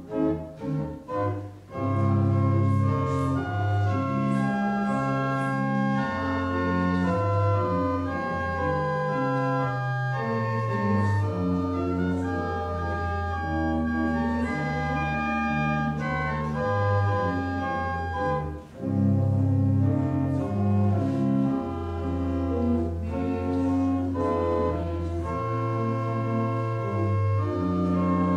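Church organ playing a slow piece in sustained chords, with a brief break about two-thirds of the way through.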